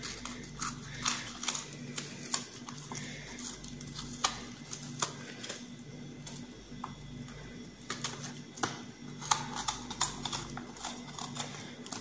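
Metal zucchini corer scraping and gouging out the flesh inside a marrow, making irregular crisp clicks and scratches.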